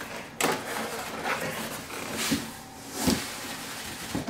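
Cardboard box and packing insert rustling and scraping as a serger is worked out of its box and lifted free, with a few dull knocks of the machine against the packaging.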